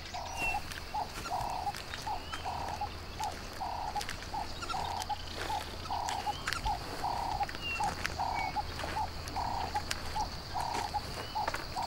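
Frogs calling in a steady chorus, two or three short calls a second with some held a little longer, over a steady high insect drone.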